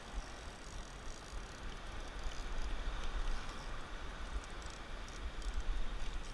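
Wind buffeting the microphone over the steady wash of small waves breaking on a rocky reef.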